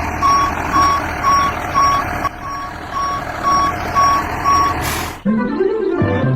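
Truck reversing alarm beeping about twice a second over a running engine, cutting off about five seconds in, followed by music.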